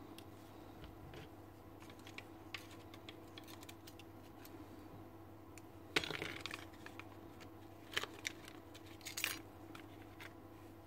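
Faint clicks and rattles of the opened plastic drill housing and its small parts being handled and worked with a screwdriver, with a sharper knock about six seconds in and a few more clicks near the end, over a faint steady hum.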